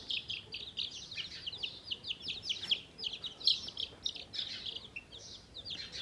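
A brood of newly hatched chicken chicks peeping continuously: a dense stream of short, high, downward-sliding peeps from several chicks at once.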